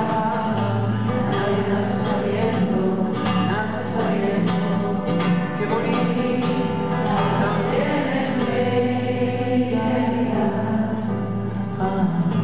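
Live music: an acoustic guitar played with singing, steady and unbroken throughout.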